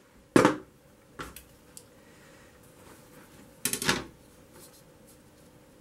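Pieces of cut glass and hand tools handled on a workbench: a few sharp knocks and clinks, the loudest about half a second in and a short cluster near four seconds.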